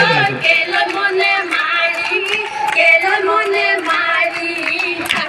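Woman singing an Assamese Jeng Bihu song through a microphone, with hand clapping and bamboo clappers clacking the beat.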